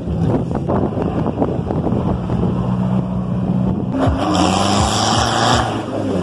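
Off-road vehicle engine running steadily, and about four seconds in a loud rush of water spray for a second and a half as a vehicle ploughs through a flooded track.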